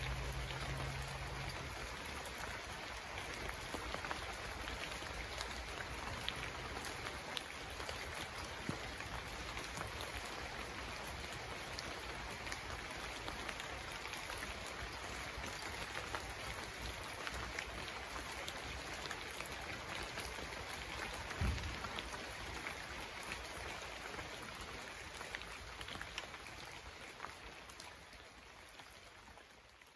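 Rain falling steadily as a dense, even hiss of drops, with a single low thump about two-thirds of the way through. The rain fades out over the last few seconds.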